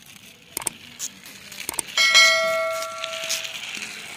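Subscribe-button animation sound effects: a few short clicks, then about two seconds in a single bright bell ding that rings and fades over about a second and a half.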